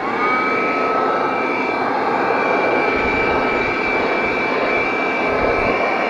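Piranha PVC-4004 12-volt handheld car vacuum switching on, its motor spinning up in a fraction of a second, then running steadily: a high whine over loud rushing air as it sucks at the floor carpet.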